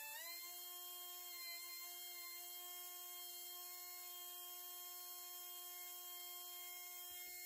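Pencil die grinder with a small abrasive stone running at a steady high-pitched whine. Its pitch dips briefly at the very start as the stone bites into a chuck jaw and throws sparks, then it runs steady. It is grinding the jaws of a four-jaw lathe chuck true.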